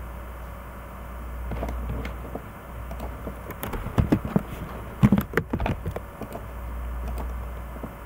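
Computer keyboard keystrokes, a scattered run of clicks that thickens into a quick, louder flurry a few seconds in, over a low steady hum.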